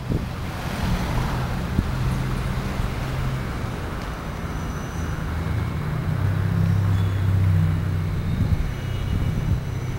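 Low, steady engine hum of motor traffic, swelling about six seconds in and easing again near the end.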